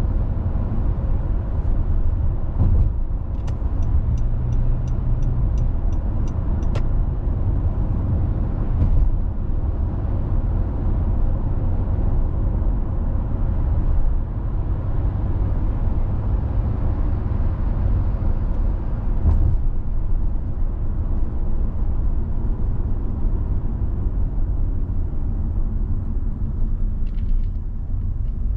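Car driving, with a steady low rumble of tyres and engine. For a few seconds near the start, a short run of even ticks comes about three a second.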